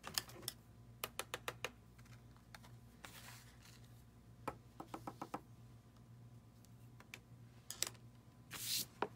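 Faint clusters of quick light taps and clicks, with two short rustles, from stamped cardstock being covered with embossing powder in a tray and the excess tapped off.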